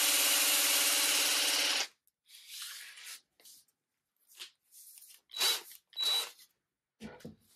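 Cordless drill spinning a metal wardrobe rail chucked in it while a sanding pad is held against the rail: a steady motor whine with sanding hiss that stops about two seconds in. After that come short scraping and rubbing sounds, two brief louder bursts, and a few knocks near the end.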